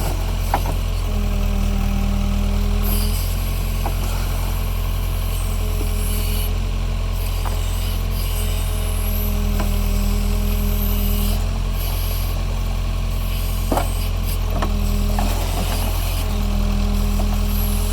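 Backhoe's diesel engine running steadily while its hydraulics work the bucket, a whine coming and going every few seconds as the load changes, with a few sharp knocks.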